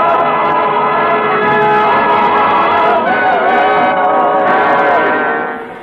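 Choir singing held chords over an orchestra, the show's opening theme music, fading out near the end.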